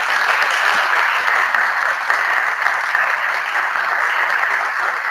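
An audience in a room applauding: dense, steady clapping.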